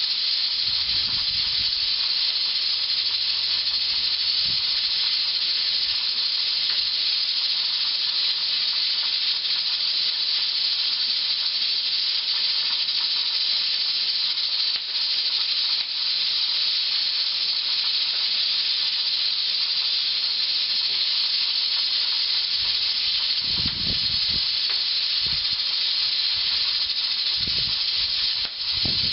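Pressure canner hissing steadily as steam escapes while it cooks on a wood-burning kitchen range, dipping briefly a couple of times midway.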